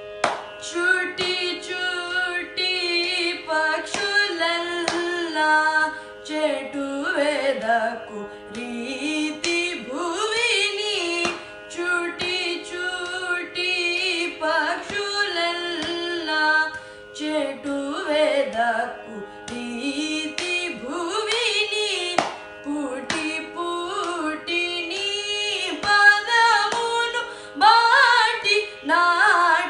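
A boy singing a Carnatic kriti in raga Suddha Saveri, with gliding, ornamented notes over a steady drone.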